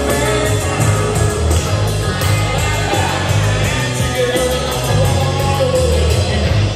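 Rock music with a singer over a steady, driving beat, played loud throughout.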